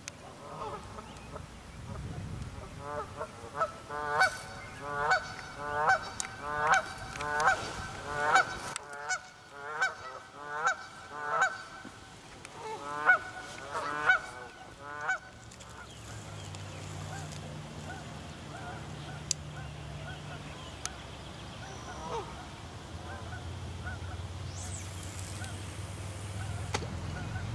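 Geese honking, a long run of loud calls about one a second, stopping about halfway through. After that a low steady hum sets in.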